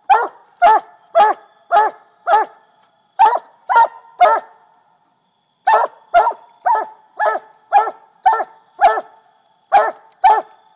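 Coonhound barking treed at the base of a tree: loud, evenly spaced chop barks, about two a second, with a short pause about halfway through.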